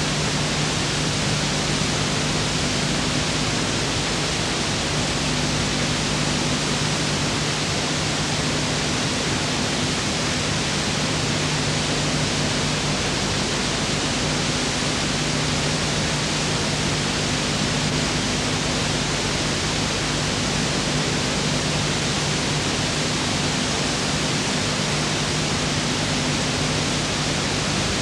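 Steady, even hiss with a low hum beneath it: the noise floor of an old film transferred to video, with no other sound on the track.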